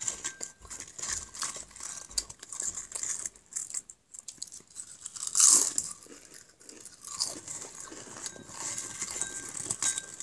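Potato crisps being chewed, a run of many small sharp crunches close to the microphone, with a louder burst of noise about five and a half seconds in.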